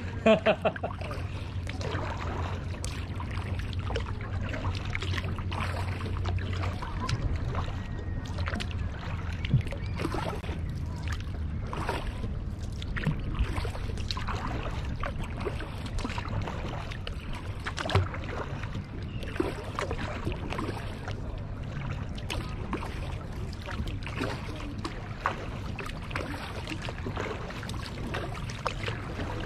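Kayak being paddled: irregular splashing and dripping of water from the paddle strokes, over a steady low rumble.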